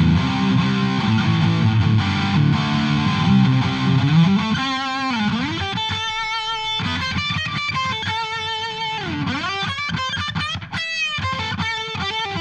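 Electric guitar played through a Vox VT20X Valvetronix modelling amp on a distorted preset: thick chords for the first few seconds, then single-note lead lines with bends, vibrato and sliding notes.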